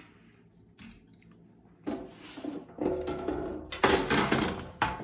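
Rustling and clattering of hands handling a computer case, with a few sharp clicks. It starts about two seconds in and is loudest near the end.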